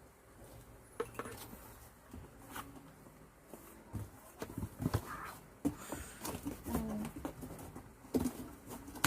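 Objects and packaging being handled at close range: irregular knocks, taps and rustles.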